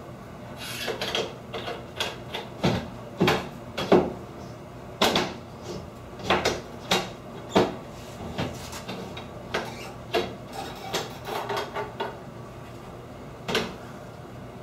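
Irregular metal clicks and knocks from a sliding glass shower door's metal top support bar being handled and seated into its wall end caps.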